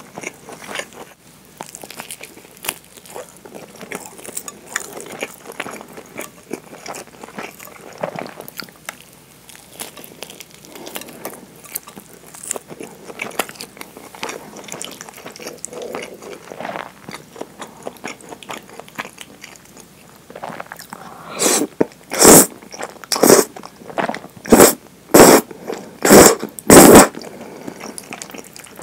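Close-miked chewing of a nori-wrapped rice ball, with soft crunches and small mouth clicks. About three-quarters of the way in comes a run of six or seven loud, short slurps of thick curry udon noodles.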